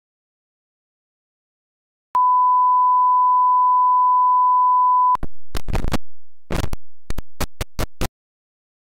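A steady 1 kHz bars-and-tone reference test tone lasts about three seconds and cuts off abruptly. It is followed by a rapid, irregular string of about a dozen short crackling bursts of noise, like signal static, that stops suddenly.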